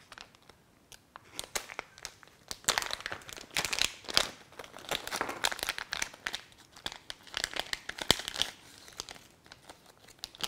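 Plastic packaging bags crinkling as they are opened and handled and the contents pulled out, in irregular bursts of rustling.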